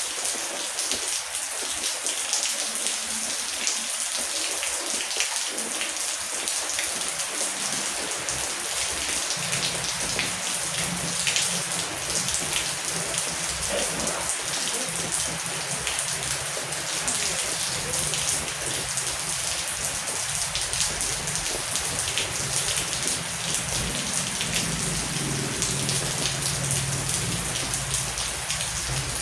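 Heavy rain falling steadily, a dense hiss of countless drops pattering on surfaces. A low rumble of distant thunder comes in about nine seconds in and swells again near the end.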